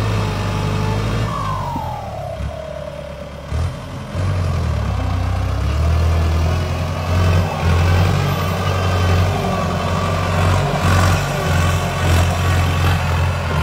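Ford 6610 tractor's turbocharged diesel engine working under load while pulling a disc harrow through soil. It eases off with a short falling whistle in the first few seconds, then pulls hard again from about four seconds in, surging several times.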